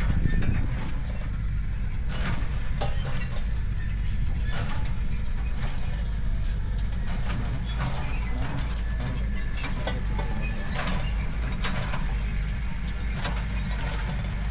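A steady low mechanical rumble, as of an engine running, with scattered sharp metallic clicks and clinks on top, like tools working on metal parts.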